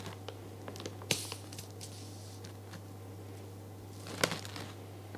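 Plastic piping bag crinkling and squishing as choux pastry dough is squeezed out, with a few faint clicks early and a louder crinkle about four seconds in, over a steady low hum.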